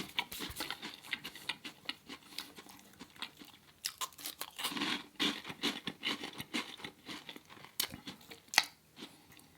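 Close-miked mouth chewing of crunchy puffed Brussels sprout chips: irregular crisp crunches and crackles, denser about five seconds in, with one sharper crunch near the end.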